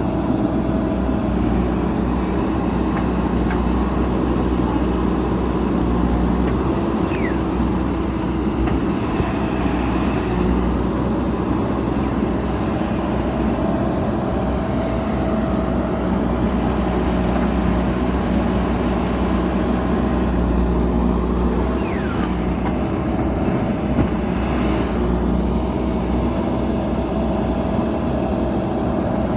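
Diesel engine of a JCB backhoe loader running steadily at a constant speed.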